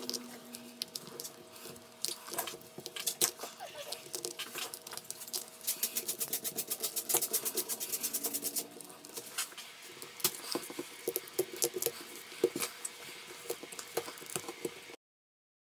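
Small hand tools clicking, tapping and scraping on an iPhone 8 Plus's cracked glass back and frame, with a quick, even run of clicks partway through. The sound cuts off suddenly near the end.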